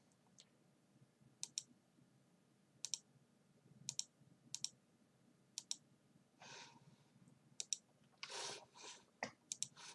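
Faint computer mouse clicks scattered through the quiet, several coming as quick double clicks. In the second half there are two soft breaths between them.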